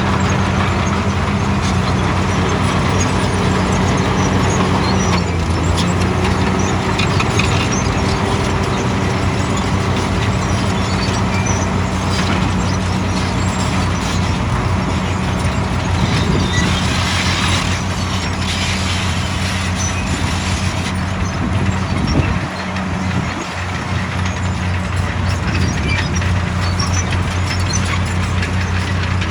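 Heavy diesel engine of a soil compactor running steadily, a strong low hum. A rush of hiss comes in for a few seconds around the middle, and the engine note drops briefly about two-thirds of the way through before picking up again.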